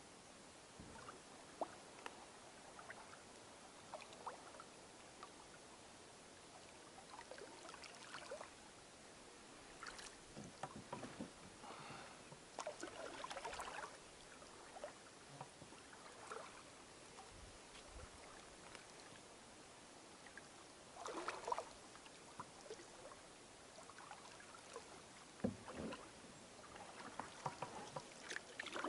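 Faint canoe paddling on calm water: irregular soft splashes and drips from the paddle, with a few sharper clicks.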